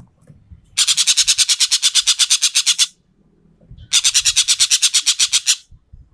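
Sumatran ekek keling bird giving its 'tembakan' call: two long, loud, dry rattles of rapidly repeated notes at about ten a second, the first about two seconds long, the second a second later and slightly shorter.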